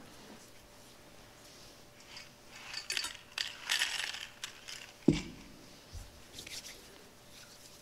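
Gold communion vessels being handled on the altar during the purification: rustling and light metallic clinks while a ciborium is tipped over the chalice. Then a single sharp knock about five seconds in as a vessel is set down on the altar.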